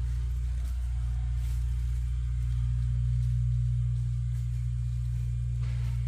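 Steady low engine drone with no change in pitch or level.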